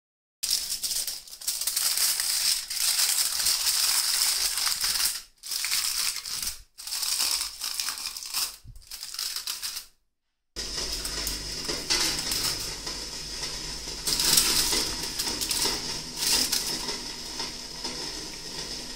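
Aluminium foil crinkling as it is pressed and folded over a ramekin, in bursts with short pauses. After a break about ten seconds in, a steadier hiss with a low hum follows, with more crinkles as the foil-wrapped ramekins are handled.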